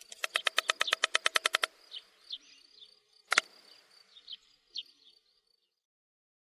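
Stork clattering its bill: a rapid rattling train of about a dozen clacks a second for under two seconds, then scattered faint short chirps and a single sharp clack about three seconds in, fading out after about five seconds.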